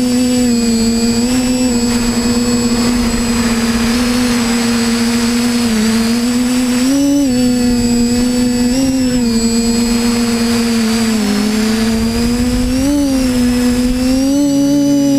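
Electric motors and propellers of a small camera drone, heard loud from the camera on the drone itself: a steady high hum whose pitch wavers up and down with small changes in motor speed, rising briefly about seven and thirteen seconds in, over a rushing noise.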